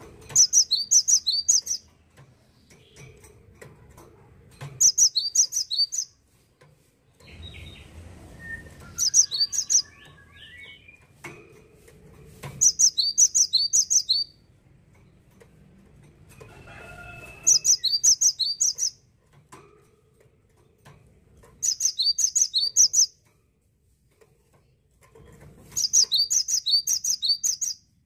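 Cinereous tit (gelatik batu) singing. It gives seven short bouts of high, ringing, quickly repeated notes, each bout about a second and a half long, coming roughly every four seconds.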